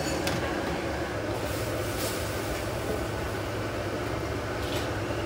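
Steady low rumble of a food stall's cooking area, with a few faint clinks of metal utensils.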